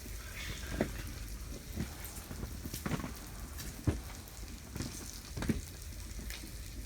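Floured perch frying in a pan: a steady sizzle with sharp pops about once a second, over a low steady hum.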